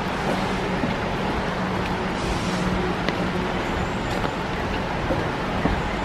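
Steady rain falling on forest leaves and a wet boardwalk: a dense, even hiss with scattered small ticks of drops, over a faint low hum.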